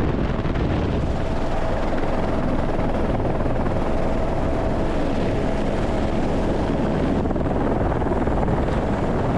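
Helicopter heard from inside its open-sided cabin in low flight: a loud, steady rotor and engine rush with a constant whining tone.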